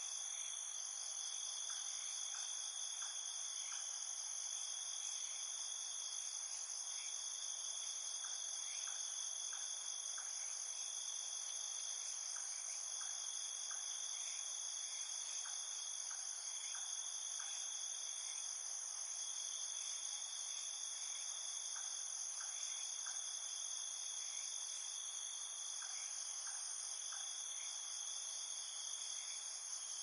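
A dense chorus of crickets chirping: a steady high-pitched trilling that holds without a break, with fainter short ticks scattered through it.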